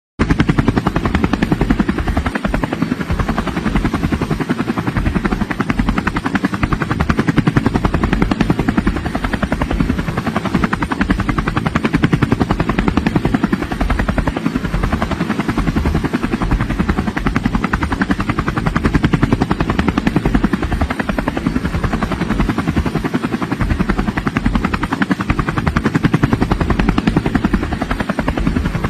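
A motor running steadily with a fast, even pulsing beat.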